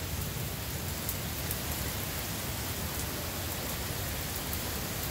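Heavy rain pouring down steadily, a dense even hiss with no let-up.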